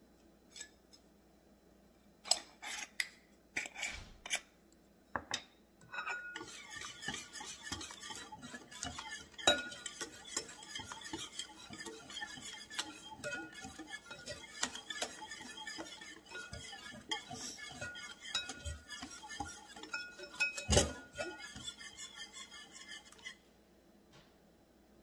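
Metal wire whisk beating egg batter in a ceramic bowl: rapid, continuous clinking and scraping of the wires against the bowl, stopping abruptly shortly before the end. A few separate sharp clicks come first, about two to five seconds in.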